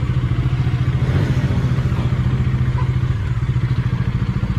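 Motorcycle engine running at low, steady revs with an even pulsing beat, its tone shifting slightly about three seconds in.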